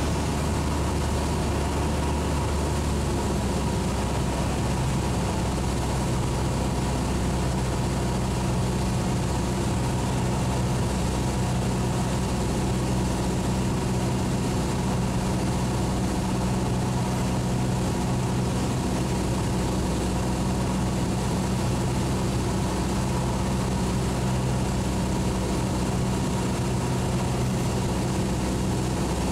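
Cessna 172's piston engine and propeller droning steadily, heard inside the cockpit while the plane flies the downwind leg of the traffic pattern. The tone shifts slightly about three seconds in, then holds steady.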